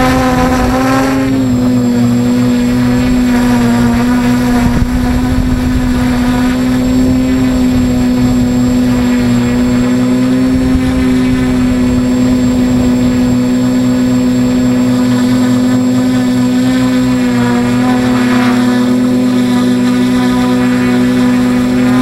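Multirotor drone's electric motors and propellers whining at a near-steady pitch, heard close up from the drone's own onboard camera, with a slight dip in pitch about a second in.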